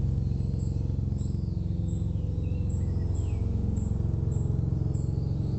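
Helicopter hovering or circling nearby, its rotor a steady, low, rapid chop that does not change. Birds chirp over it now and then.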